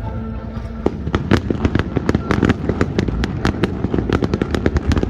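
Fireworks display: a rapid, dense volley of sharp bangs and crackles starts about a second in and keeps going at many reports a second, over a low rumbling background.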